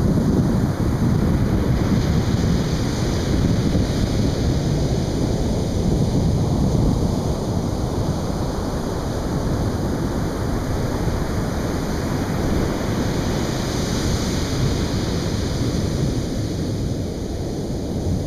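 Atlantic Ocean surf breaking and washing up a beach: a continuous rush with a deep rumble beneath, swelling into a louder hiss of breaking water twice, a few seconds in and again about three-quarters of the way through.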